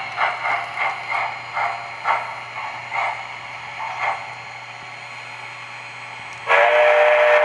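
An MTH model steam locomotive's sound system plays steam chuffs that slow and fade out as the train slows to a stop. Near the end it sounds a loud, steady steam whistle.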